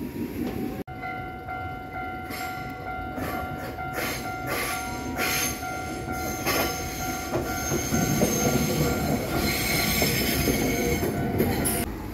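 Japanese level-crossing warning bell ringing without a break while a Nankai Kōya Line train runs past with wheel and rail noise.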